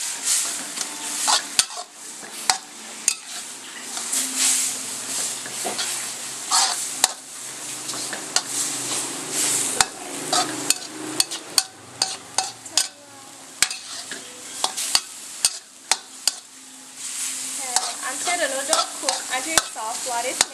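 Rice noodles stir-frying in a wok: steady sizzling, with a metal spatula scraping and clinking sharply and irregularly against the wok as the noodles are turned and separated.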